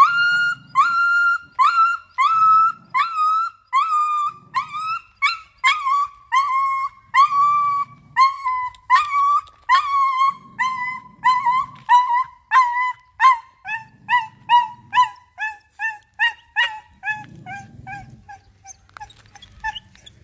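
A dog yelping and crying in distress over and over while another dog pins and bites it, about two high cries a second. The cries slide gradually lower in pitch and grow shorter toward the end.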